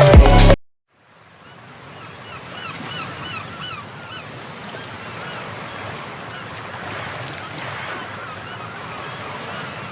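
Steady heavy rain, fading in about a second in, with a bird giving short repeated calls twice. Background music cuts off just before the rain comes up.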